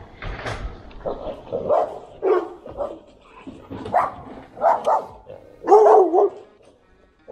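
A dog barking repeatedly from a dock, about nine barks, the loudest a longer, wavering bark near the end.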